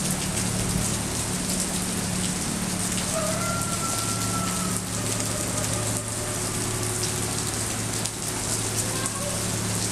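Steady rain falling on wet pavement, many individual drops ticking close by, over a steady low hum.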